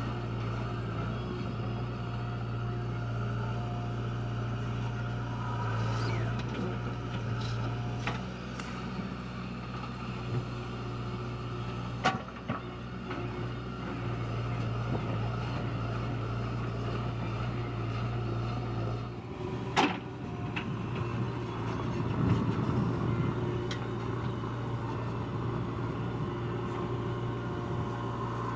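JCB 3DX backhoe loader's diesel engine running steadily while it works, with a couple of sharp knocks midway and about two-thirds of the way through.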